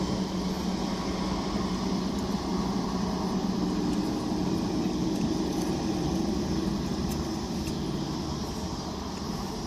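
Steady hum of a car's running engine and air-conditioning blower, heard from inside the cabin; its low tone steps up a little in pitch about four seconds in.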